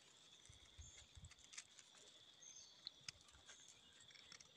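Near silence: a small knife faintly scraping and clicking as it trims the soil off the stem base of a red russula mushroom, over a faint steady high-pitched drone.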